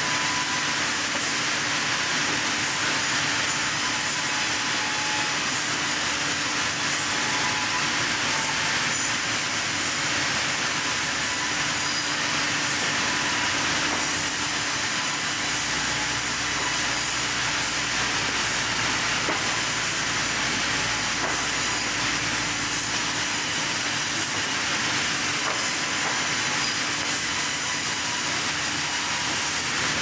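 Sawmill band saw running and cutting through wood slabs fed by hand: a steady, even noise with a faint hum underneath.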